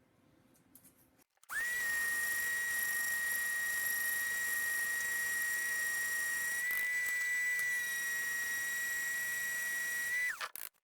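Small electric sander's motor switched on about a second and a half in, running with a high, steady whine. Its pitch steps up slightly past the middle, then falls away as it is switched off near the end.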